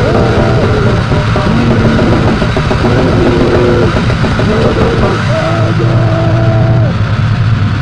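Loud, dense, distorted noise music playing from a 7-inch vinyl record on a turntable. It has a heavy low end, with wavering pitched tones that rise and fall over the din.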